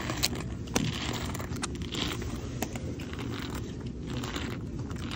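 Poker chips clicking and clattering against each other as a stack of chips is handled and gathered, a few sharp clicks over steady room noise.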